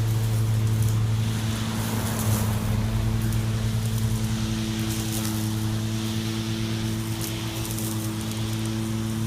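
EGO 56V battery-powered lawn mower running with a steady hum, with an even whooshing noise over it.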